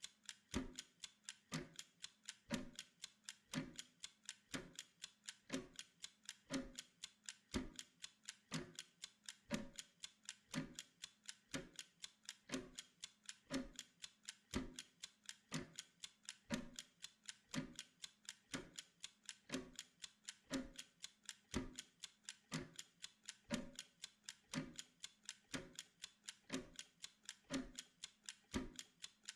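Steady clock-like ticking of a timer, sharp regular clicks with a deeper, stronger tick about once a second.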